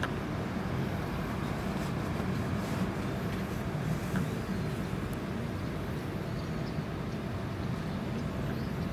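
Steady low background rumble, even throughout, with a few faint clicks.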